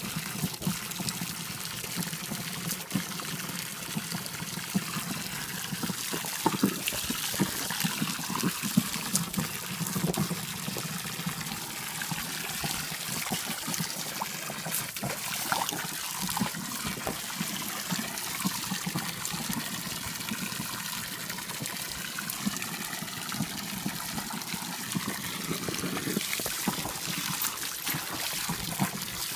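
Thin stream of water from a garden-hose nozzle splashing steadily into a shallow inflatable paddling pool, with irregular sharper splashes as a small terrier wades and snaps at the stream.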